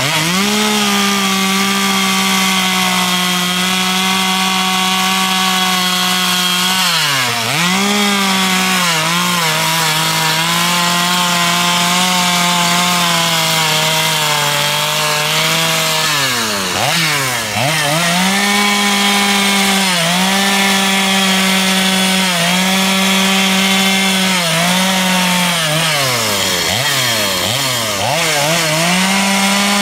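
Stihl two-stroke chainsaw at high revs, cutting into a wooden carving. Its engine note drops sharply and climbs back up several times, as the throttle is eased and opened again or the saw is loaded in the cut.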